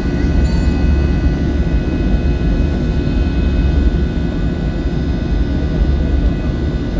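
Airliner's turbofan jet engines running steadily at climb power, heard inside the cabin from a window seat near the wing: a loud, deep rumble with a thin steady whine above it.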